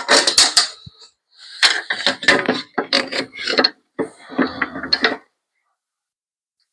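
Irregular workshop clatter: a string of knocks and clicks from tools and pieces of wood being handled on a bench. It stops abruptly about five seconds in.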